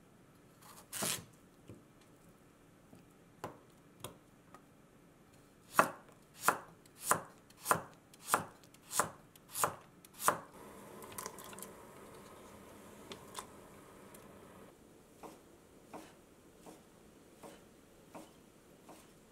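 Kitchen knife slicing a daikon radish on a wooden cutting board: after a single knock about a second in, a steady run of about eight crisp cuts, the blade striking the board about one and a half times a second. Then a few seconds of faint rustling and a series of softer, lighter cuts through thin fried tofu sheets.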